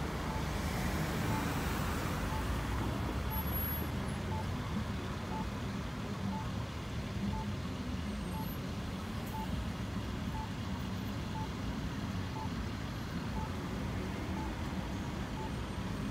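Campbell Advisor Guide accessible pedestrian signal pushbutton sounding its locator tone, a short beep about once a second, the tone that marks the button's position while pedestrians wait to cross. Steady traffic noise from cars and trucks at the intersection runs under it.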